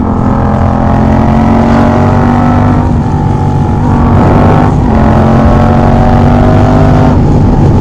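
Yamaha MT-07's 689 cc crossplane parallel-twin engine running loud through a Jeskap GP3 sport exhaust with its DB killer removed, so the exhaust is unbaffled. The engine is accelerating, its pitch creeping upward, with a brief drop about four and a half seconds in and another near the end.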